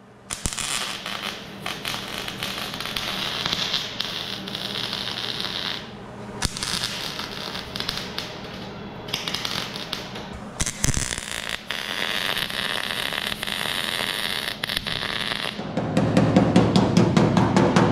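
MIG welder crackling in several bursts of a few seconds each as it plug-welds and tacks sheet-steel body panels. Near the end comes a louder, fast rhythmic rattle.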